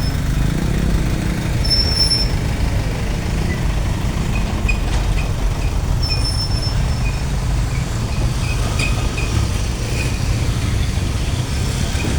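Steady, loud low rumble of heavy vehicles, with two brief high-pitched squeals about 2 and 6 seconds in.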